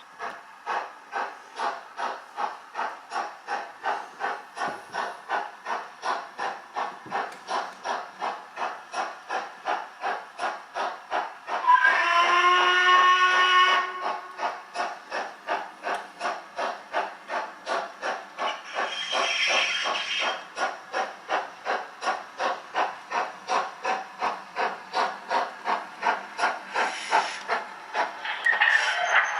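Model railway sound decoder playing recorded LMS Black 5 steam locomotive sounds: steady exhaust chuffs at about two to three a second, with the whistle blown for about two seconds near the middle. A fainter hiss comes in about two-thirds through.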